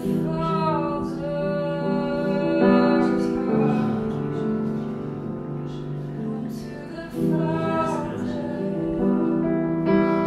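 Slow worship music: a woman singing long, wavering notes over sustained piano chords that change every few seconds.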